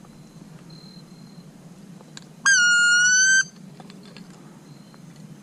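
A duck call blown once to turn a circling duck: one long, loud whistled note about a second long, dipping at the start and then slowly rising before cutting off.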